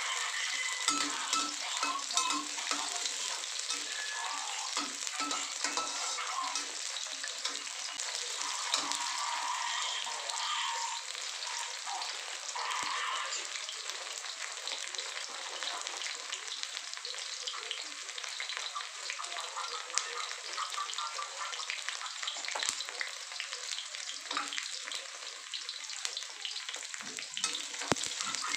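Garlic and shallots sizzling and crackling in hot oil in a stainless steel wok, stirred with a metal spatula that scrapes and knocks against the pan now and then.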